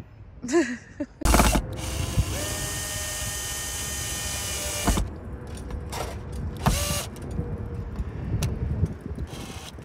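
Cordless drill-driver running on a screw in the frame of a mains hook-up socket on a van's metal side panel: one run of about four seconds, its motor whine rising slightly partway before it stops sharply, then a shorter sound and a few clicks later.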